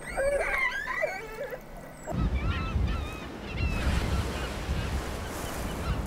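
Killer whale calls: a string of rising and falling whistles and honking calls. About two seconds in they give way to a low rush of wind and waves on the sea, with a few fainter calls over it.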